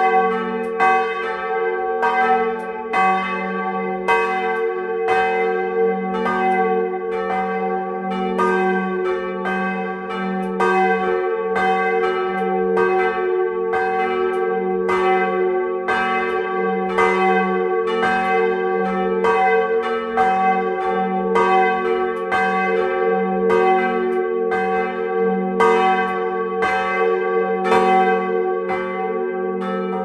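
Two swinging church bells ringing together at close range, their clappers striking in an uneven, interleaved rhythm of about two strokes a second. Between strokes the bells' deep tones hum on without a break.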